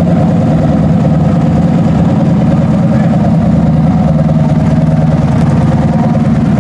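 Formula Offroad buggy's engine running loud and steady at low speed as the buggy creeps along on paddle tyres, holding one even pitch with no revving.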